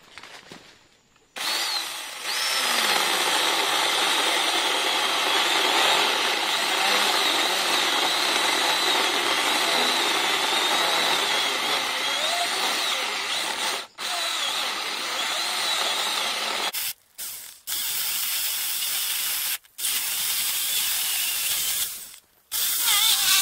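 Battery-powered mini chainsaw sawing into a thick ice cream bean limb, its motor whine wavering as the chain bites the wood. The limb is probably a little too big for such a small saw. It pauses briefly once, then near the end it stops and restarts in short bursts.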